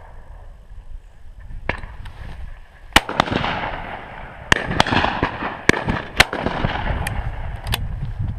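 Shotguns firing at driven pheasants: a quick run of about eight shots from several guns within about five seconds, starting about three seconds in, some louder and some fainter. One faint shot comes earlier.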